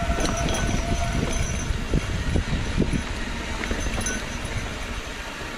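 Mountain bike rolling fast down a rough dirt trail: steady tyre and low rumbling noise with irregular knocks and rattles as the bike hits bumps and rocks.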